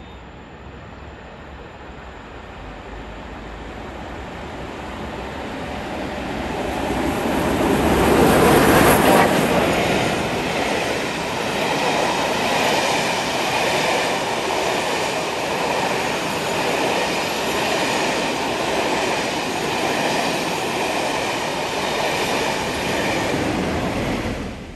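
Steam locomotive Royal Scot No. 46100, a three-cylinder 4-6-0, and its train approaching and passing. The sound grows louder to a peak about eight seconds in, then the carriages roll by steadily until it cuts off abruptly.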